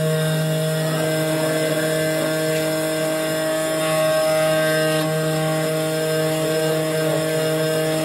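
CNC key-cutting machine running steadily as its spindle cutter mills a key blank held in the clamp, a constant motor whine with a light scraping of metal.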